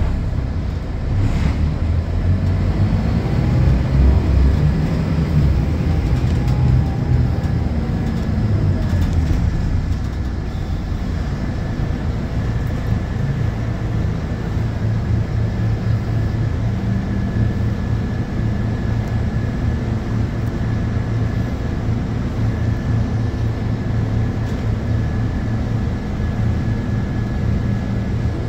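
Scania K230UB bus's five-cylinder diesel engine heard from inside the rear of the bus. It is louder and changing in pitch for about the first ten seconds, then settles into a steady idle.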